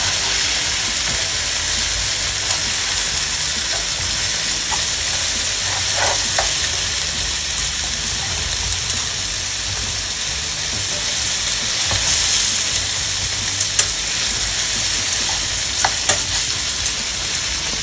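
Pork hock pieces and sliced onion sizzling as they pan-fry in a nonstick pan, being browned until golden. The frying is a steady hiss, with a few light clicks of metal tongs against the pan as the meat is turned.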